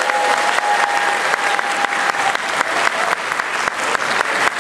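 An audience applauding with dense, steady clapping right after an a cappella song ends. One long held call rings out over the clapping for the first two seconds.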